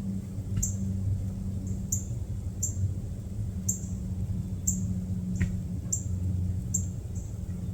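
A small bird giving short, very high chip calls, repeated roughly once a second, over a steady low hum.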